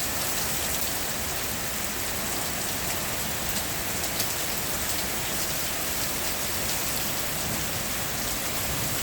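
Heavy downpour of rain, a steady even hiss, with scattered sharp ticks of close drops striking nearby surfaces.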